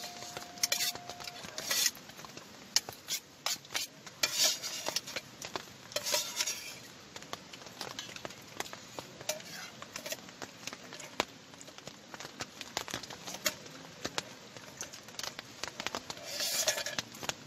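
Spoon tapping and scraping against a camping bowl during a meal: scattered sharp clicks with a few short scraping rustles.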